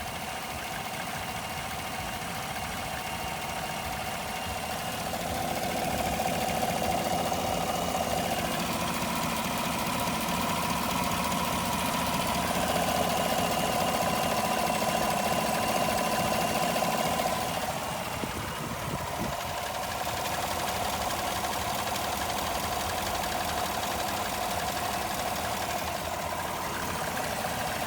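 Engine idling with a steady whistle over its rumble, the sound of a vacuum leak. The whistle grows louder for a stretch in the middle, then eases off a little.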